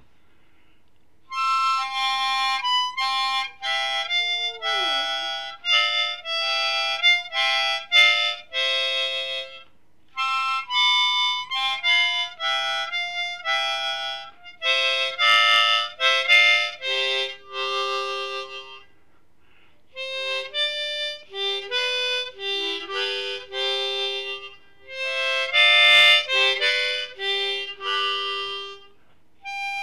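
Solo harmonica playing quick runs of notes and chords in phrases separated by short pauses.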